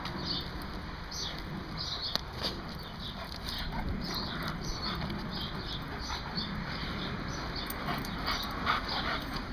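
Two dogs, a black-and-tan dog and a yellow Labrador, playing tug with a black glove, making short, high dog noises over a steady background hiss.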